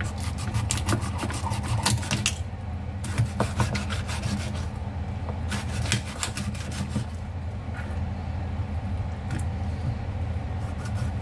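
A large kitchen knife cutting up a raw chicken on a wooden cutting board: irregular knocks of the blade striking the board, with scraping and rubbing as the pieces are handled, over a steady low hum.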